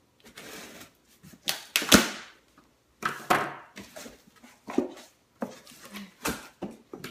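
A cardboard shipping box being opened by hand: irregular rustling, tearing and knocking of cardboard and packing tape, with a sharp crack about two seconds in.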